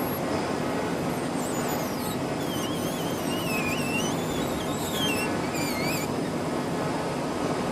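Ultrasonic sealing machine with a rolling sonotrode running with a steady mechanical hum. A thin, wavering high whistle drifts in and out in the middle.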